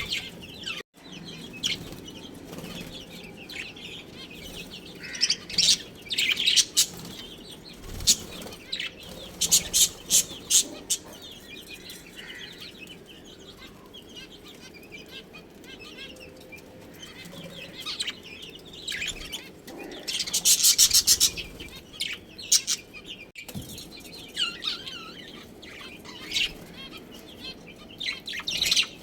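Budgerigars chirping and chattering in clusters of quick, high chirps, with a dense burst of chirping about twenty seconds in.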